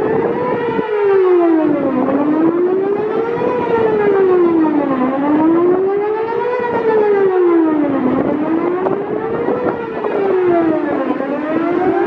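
Whelen WPS-4008 electronic siren sounding its Best Possible Protection tone, a pitch that rises and falls over and over, one full cycle about every three seconds. The recordist believes the unit is running with only half a driver intact.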